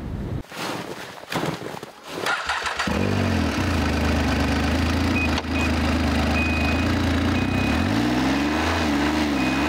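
Ski-Doo snowmobile engine starting about three seconds in, after a few knocks and rustles, then running steadily and revving up and down a little near the end. A short high beep repeats through the second half.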